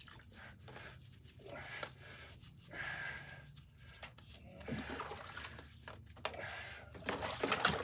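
Engine parts being handled in a tub of soapy wash water: light sloshing and small knocks, with a sharp click about six seconds in.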